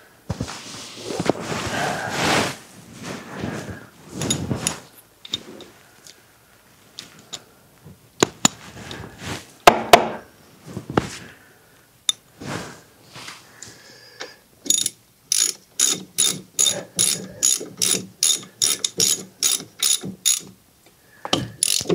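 Hand ratchet wrench driving in a caliper bolt on a front disc brake caliper: an even run of ratchet clicks, about three a second, from about two-thirds of the way in to near the end. Before it there is rubbing from a rag wiped over the brake rotor, then scattered clinks of tools and parts being handled.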